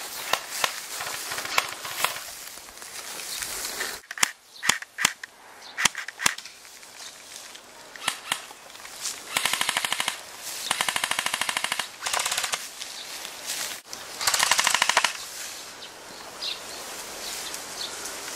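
Airsoft rifles firing: a few single shots about four to six seconds in, then three rapid full-auto bursts of about a second each between nine and fifteen seconds.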